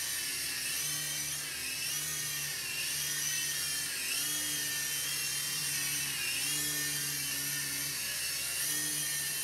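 UDI/RC U12S toy RC helicopter flying, its motor and rotors giving a high whine that wavers up and down in pitch every second or so.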